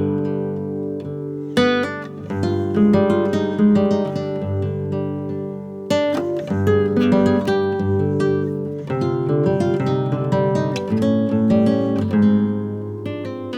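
Background music of acoustic guitar, picked notes and strummed chords.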